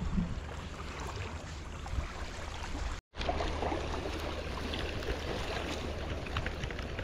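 Gentle lapping of shallow water at a sandy shore with light wind on the microphone, a steady wash of noise with faint scattered ticks. The sound cuts out completely for an instant about three seconds in, then resumes a little louder.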